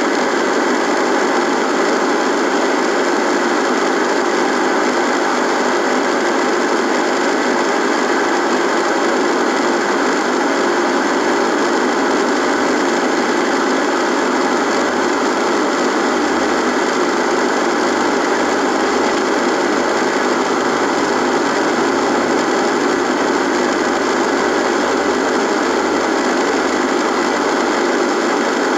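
Radio buzzing: a steady electrical buzz mixed with static hiss, holding the same level throughout, with faint steady tones running through it.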